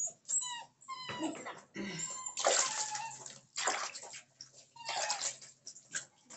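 A dog whining in short, high, falling cries while a dapple dachshund puppy is bathed, water splashing and being poured over it in three loud rushes.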